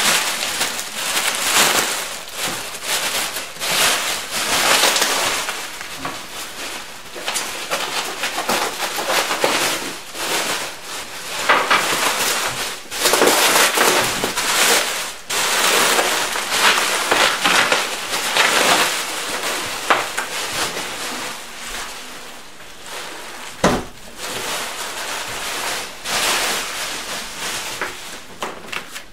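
Bubble wrap crinkling and rustling as it is pulled off and bundled by hand, in bursts of a second or two with short pauses. One sharp knock comes about three-quarters of the way through.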